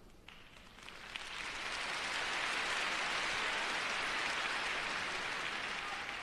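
Crowd applauding, the clapping swelling over the first couple of seconds, holding steady, then easing off near the end.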